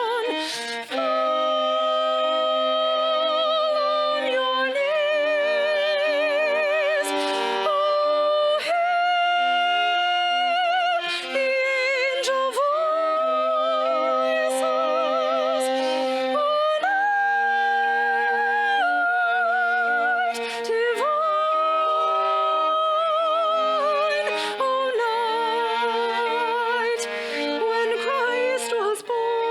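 Live church music: a slow melody of long held notes with vibrato over a chordal accompaniment.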